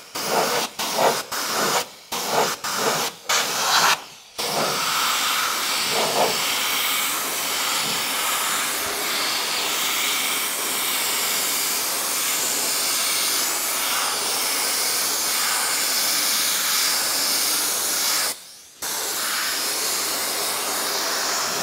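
Compressed-air hiss of an APP pneumatic cartridge spray gun spraying rubbery sealant onto a car's sill. It comes in several short trigger bursts over the first four seconds, then sprays continuously, with one brief stop about three seconds before the end.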